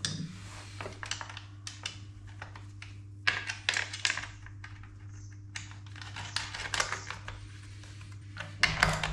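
Irregular clicks and knocks of plastic and metal as the side cover of a small Stihl chainsaw is handled and fitted back onto the saw, coming in clusters. A steady low hum runs underneath.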